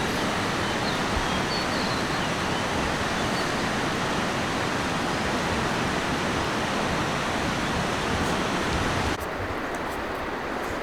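Steady roar of rushing water. About nine seconds in it drops abruptly to a quieter, duller rush.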